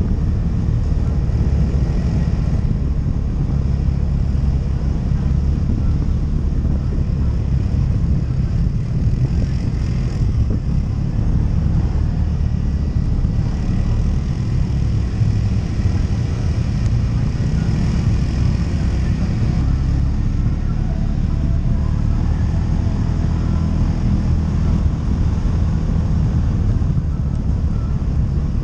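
ATV engine running steadily while being ridden: a low drone at an even level.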